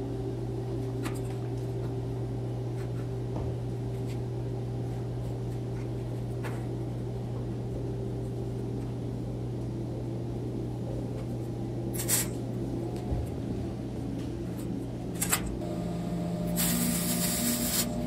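Steady low hum with a few short knocks as steel square tubing is handled and fitted. About a second and a half before the end, a MIG welder strikes an arc and runs with a steady hiss.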